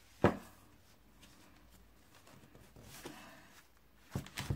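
Hands handling and pressing designer paper onto a card album cover: one sharp knock about a quarter second in, then faint paper rustling and two light taps near the end.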